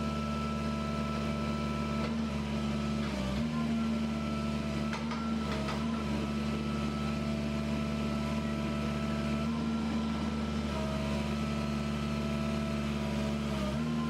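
Caterpillar 305E2 CR mini excavator running at a steady engine speed while its boom, arm and bucket are moved down; the engine note dips briefly under load about three seconds in and again near the end, and a higher hydraulic whine shifts pitch as the controls are worked.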